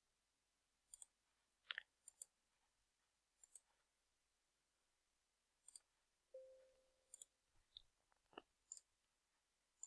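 Faint computer mouse clicks, about ten of them at irregular intervals, against near silence.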